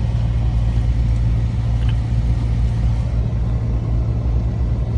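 Off-road 4x4's engine running steadily with a deep, even rumble.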